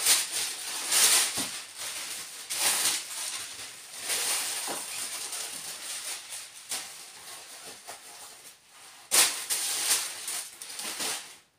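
Packing paper rustling and crinkling in irregular bursts as stuffing is pulled out of a new tall riding boot, with the loudest burst about nine seconds in.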